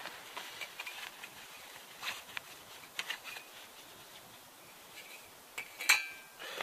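Small clicks and rustles of a light aluminium soda-can burner being handled and set on a flat stone. About six seconds in comes one sharp metallic clink that rings briefly.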